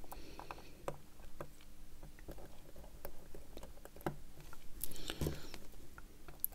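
Faint, scattered small clicks and scratches of a watchmaker's screwdriver and tweezers on a Seiko 6139 chronograph movement as the column wheel's screw is taken out.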